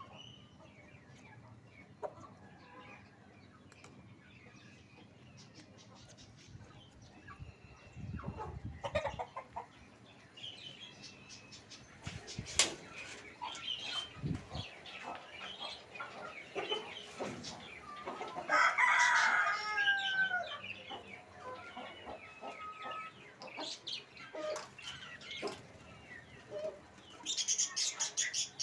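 Chickens clucking, with a rooster crowing once, loudly, about two-thirds of the way through, and a few dull knocks around the middle. Near the end, high twittering of budgerigars in a cage sets in.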